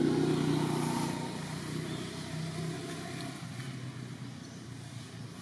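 A motor vehicle's engine hum, loudest at first, then fading steadily as it moves away.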